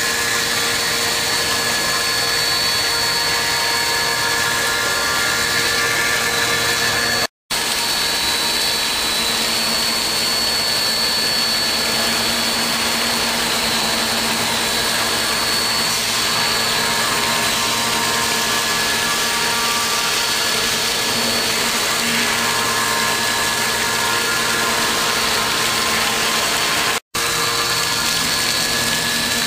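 5-axis CNC machine running a cut, a steady machining noise with several high whining tones from the spindle. It drops out for an instant twice.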